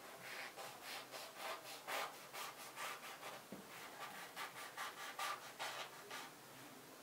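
Kitchen knife sawing back and forth through the baked choux pastry shell of a cream puff cake, in a quick series of strokes about three a second that stop near the end.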